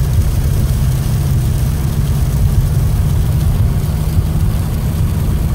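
Steady low rumble of a Subaru STI's turbocharged flat-four engine and tyres on a snow-covered road, heard from inside the cabin while driving.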